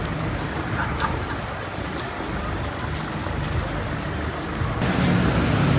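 Busy city-street traffic: a steady rumble of passing road vehicles, getting louder about five seconds in as a heavy engine comes close.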